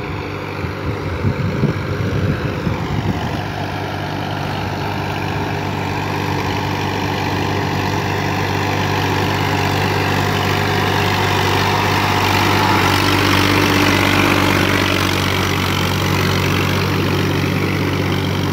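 Massey Ferguson 1035 DI tractor's three-cylinder diesel engine running steadily under load as its cage wheels work through a flooded paddy field. The engine grows louder as the tractor comes closer and is loudest about two-thirds of the way in. A few uneven low thumps sound in the first seconds.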